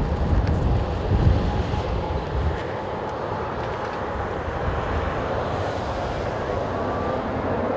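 Jet engines of a twin-engine widebody airliner on final approach, a steady rushing noise with a faint rising whine near the end. Gusts of wind buffet the microphone in the first couple of seconds.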